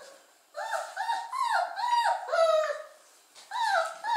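Dog whining: a run of about five short, high cries, each falling in pitch, then a short pause and more cries near the end.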